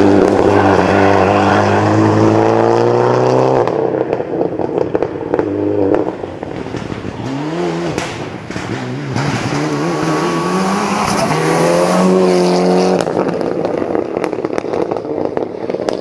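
Mitsubishi Lancer Evolution VI rally car's turbocharged four-cylinder engine at full throttle, revving up through the gears. Its pitch climbs and then drops at each shift, several times over.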